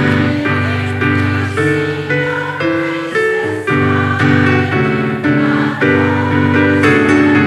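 A roomful of people singing a hymn-like song together, accompanied by electric keyboard chords.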